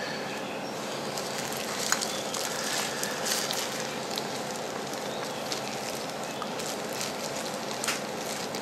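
A plastic-gloved hand digging and rummaging through crumbly, dry beetle-rearing soil in a plastic tray: a steady crackle of the glove crinkling and the soil crumbling, with a few sharp ticks.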